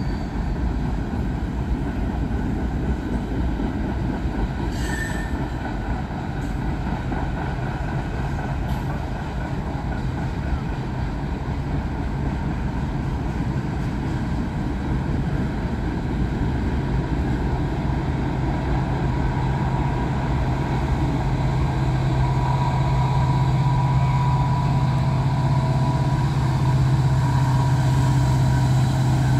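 Norfolk Southern manifest freight train rolling past: a steady rumble of rail cars on the track. A low steady hum grows louder over the second half, and a faint high whine comes in near the end.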